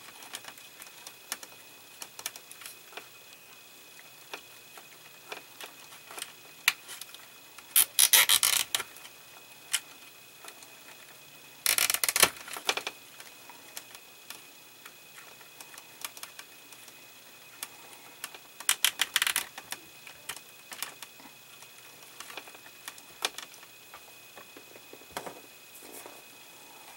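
A nylon cable tie being pulled tight through its ratchet in three short bursts of rapid clicking, a few seconds apart. Between the bursts there are light clicks and taps as wires and small plastic parts are handled.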